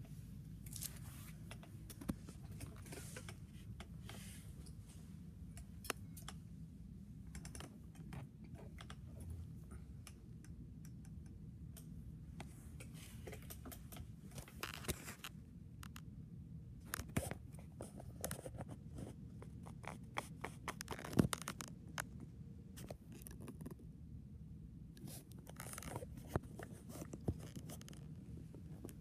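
Handling noise from a handheld phone: scattered small clicks, rustles and scrapes over a steady low hum, with one sharper click a little past the middle.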